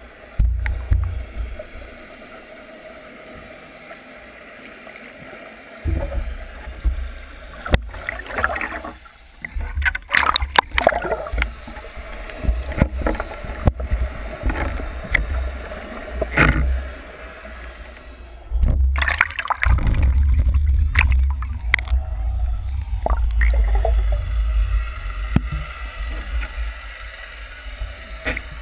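Muffled underwater rush of water past a GoPro camera in its waterproof housing, a low rumble that swells about six seconds in and again in the second half, with scattered sharp knocks and gurgling.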